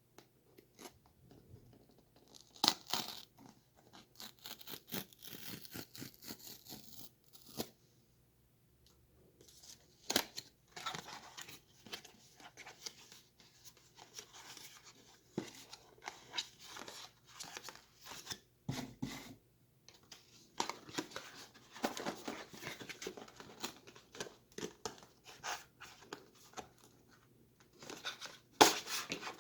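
Product packaging being opened and handled by hand: cardboard and plastic tearing, rustling and clicking in irregular spells, with two short pauses.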